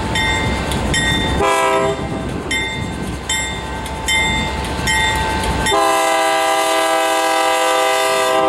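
Level-crossing bell ringing about twice a second over the low running of a GE C44-9W diesel locomotive's engine as it passes slowly. The locomotive's air horn sounds one short blast about a second and a half in, then a long blast of about three seconds near the end.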